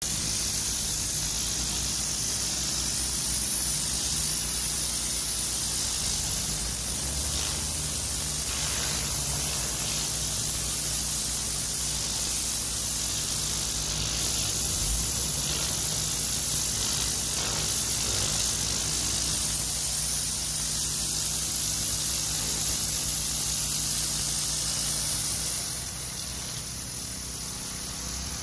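DeWalt 3800 psi pressure washer blasting concrete through a turbo (rotary) nozzle: a steady hiss of the spinning water jet hitting the surface, with the machine's steady low hum running underneath.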